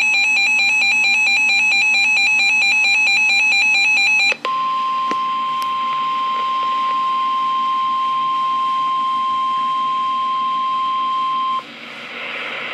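NOAA Weather Radio alert signals: about four seconds of rapidly warbling digital SAME header tones, then after a brief break the steady 1050 Hz warning alarm tone for about seven seconds, followed by faint radio hiss.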